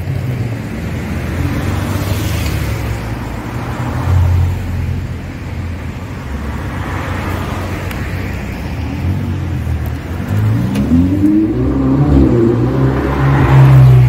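Cars driving past one after another. Near the end, a Ferrari 488 GTB's twin-turbo V8 revs as it passes, its pitch rising and falling; this is the loudest moment.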